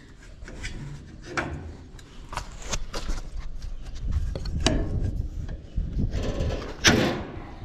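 Scattered clicks, knocks and scraping as parts of farm machinery are handled and worked on, with a louder scraping rush near the end.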